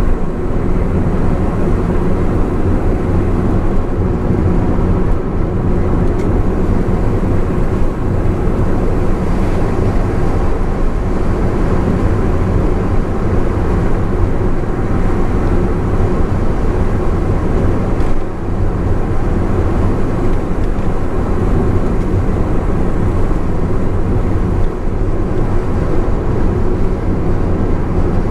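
Honda S660 with its turbocharged three-cylinder engine cruising on an expressway: steady engine drone and tyre and road noise, with a brief dip in level about two-thirds of the way through.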